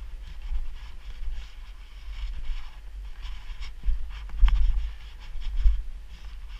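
Wind rumbling on the microphone of a skier moving downhill, over the hiss and scrape of skis sliding on packed snow, with a brief click about four and a half seconds in.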